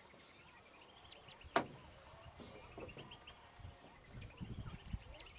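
Runs of short, high chirps repeated in quick series, with one sharp click about a second and a half in and a few low bumps near the end.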